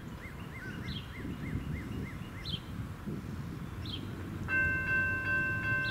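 A bird sings a fast repeated chirping phrase over a low rumble. About four and a half seconds in, the grade crossing's warning bell starts ringing with steady, evenly repeated strikes, the signal that a train is approaching.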